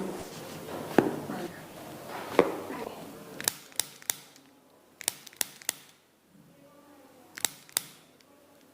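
Sharp clicks and pops from chiropractic spinal adjustments on a sciatica patient's back. There are two louder pops about a second apart near the start, then three quicker runs of small clicks.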